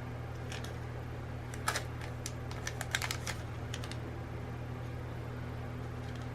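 Scattered light clicks and small crinkles of beads in plastic packets being handled, bunched in the first four seconds, over a steady low electrical hum.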